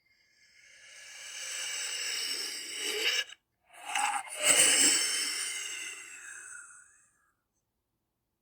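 Demonic sound effect of a raspy, hissing breath in two long swells: the first builds for about three seconds and cuts off, then a louder one starts with a low rumble and fades away.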